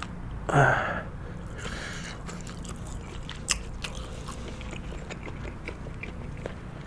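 Close-miked chewing of sushi: a brief voiced sound from the eater about half a second in, then a run of small wet mouth clicks and smacks as the sushi is chewed.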